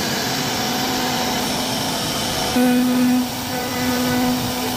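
Wood carving machine running as it cuts: a steady motor whine over a noisy hiss, swelling louder twice in the second half, each swell under a second long.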